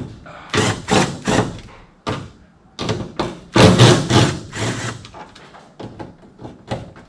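Cordless drill fitted with a socket, undoing the 5/16 bolts that hold a wiper linkage. It runs in several short bursts, the longest and loudest near the middle, with clunks and rattles between.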